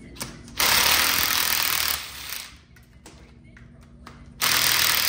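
Two bursts of a power tool, each about a second and a half long, spinning out the fasteners of a Sea-Doo 787 jet pump's cone.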